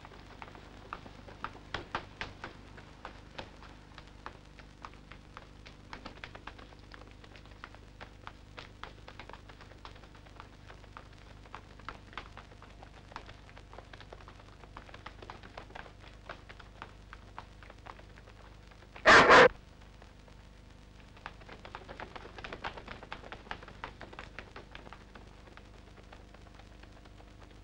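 Running footsteps of several children on pavement and stone steps, heard as scattered light taps that crowd together near the end. About two-thirds of the way through comes one short, loud, double burst.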